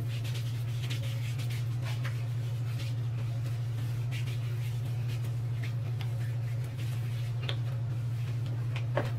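Hands rubbing sunscreen lotion into bare legs, a soft repeated skin-rubbing sound, over a steady low hum. A couple of sharp clicks come near the end.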